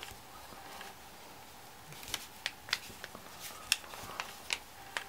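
Two-part epoxy putty being kneaded between the fingers: faint handling sounds, then from about two seconds in a series of sharp little clicks as the sticky putty works against the fingers.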